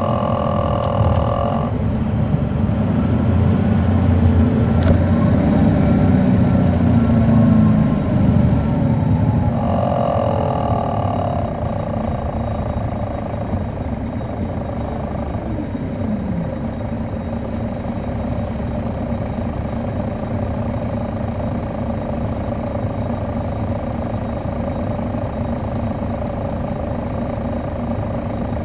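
Caterpillar C13 ACERT inline-six diesel of an MCI D4500CL coach, heard from inside the coach, pulling hard with a heavy low rumble that builds from about two seconds in, then easing off near nine seconds to a steady cruise. Two short high squealing tones break in, one at the very start and one about ten seconds in.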